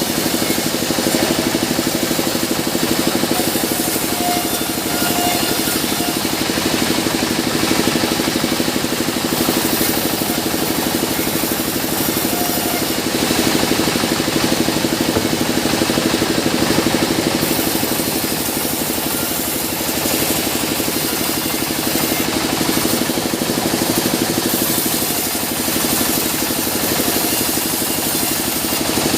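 Sawmill band saw machinery running steadily, a continuous loud mechanical drone with a constant hum.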